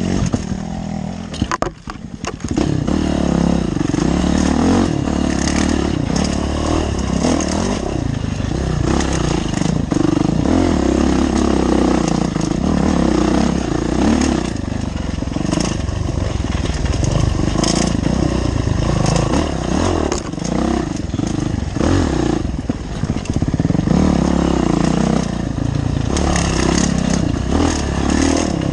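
Dirt bike engine stalls, cutting out for about a second near the start with a few clicks and knocks, then catches again and runs on with revs rising and falling under riding load. The bike's chassis rattles and knocks over the rough trail.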